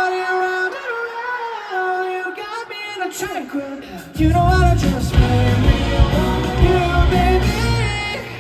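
Live pop song with singing over sparse backing, then the full band with bass and drums comes in about four seconds in.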